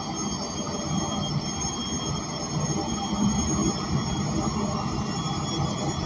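Cabin noise inside an ENC Axess transit bus: the Cummins Westport L9N natural-gas engine and drivetrain make a steady low rumble, with several thin, steady high-pitched whines over it.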